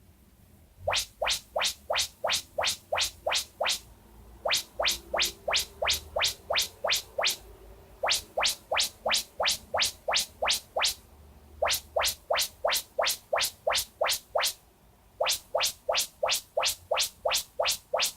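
Yamaha YSP-2700 sound bar playing its automatic surround-setup (IntelliBeam) test signal: fast rising chirps, about three to four a second, in runs of a few seconds with short pauses between, used to calibrate the sound beams to the room.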